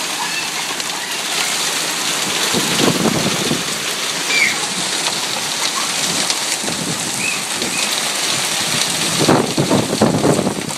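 Hailstorm: a dense, steady clatter of hailstones and rain hitting surfaces. There are two louder, lower surges, one about three seconds in and a stronger one near the end.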